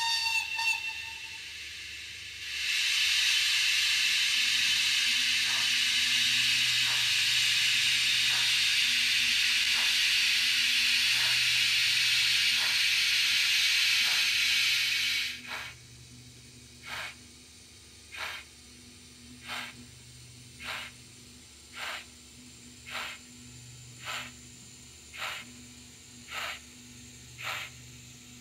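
Steam sound of an H0-scale model Renfe steam locomotive setting off: a short whistle, then a loud steady hiss of steam for about thirteen seconds with faint chuffs beneath it. The hiss cuts off and slow, evenly spaced exhaust chuffs follow, a little over one a second.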